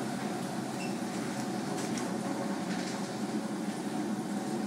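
Automated tunnel car wash machinery running: a steady rumble with an even hiss above it.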